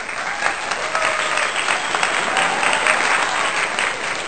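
Crowd applause, a steady dense clapping with a few faint voices in it, playing as a sound effect over the channel's outro card.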